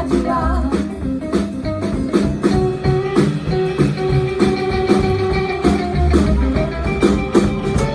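Rock and roll band playing an instrumental break led by electric guitar over a steady beat and bass line, with a long held guitar note through the middle.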